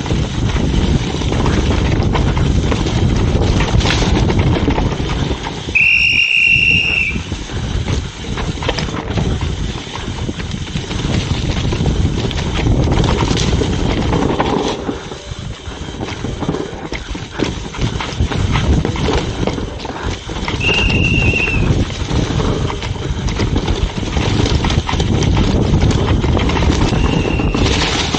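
Downhill mountain bike running fast over a rough dirt trail: a constant rush of wind on the microphone and tyre noise, with irregular knocks and clatters as the bike and its suspension hit roots and bumps. Three times a short, high, steady squeal comes in, typical of disc brakes being dragged.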